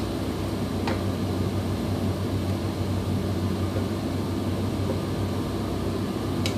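A steady low mechanical hum, with two light knocks as a wooden spatula stirs a pot of stew, about a second in and near the end.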